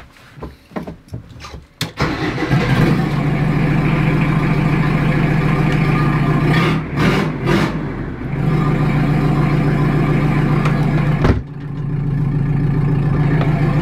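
Jeep XJ 2.5 turbodiesel idling loud, with no exhaust fitted so the gas comes straight out of the manifold, which makes it sound a bit demented. Some quieter clicks and knocks come first, and the engine comes in loud about two seconds in.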